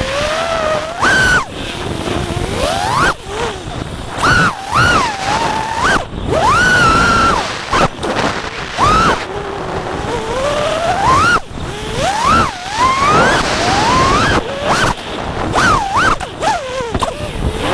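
FPV racing quadcopter's brushless motors and propellers whining in flight, the pitch rising and falling sharply as the throttle is punched and cut again and again, with wind rushing over the microphone.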